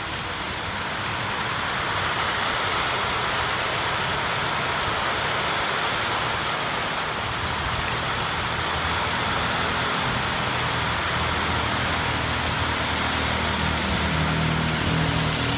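Heavy rain pouring steadily, with water streaming off a roof edge. In the second half a low engine hum builds and is strongest near the end.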